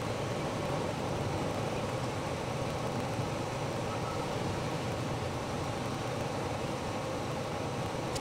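Steady whirring drone of a camper's air conditioner running on low, drawing about 1,200 watts from a portable power station.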